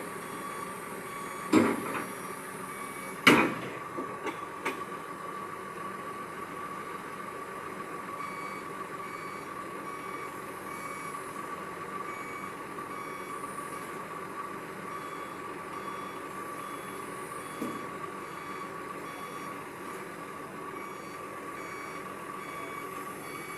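A heavy machine running steadily with a constant whine and faint, evenly spaced on-off beeping. A few sharp clicks or knocks come in the first five seconds, and one more later.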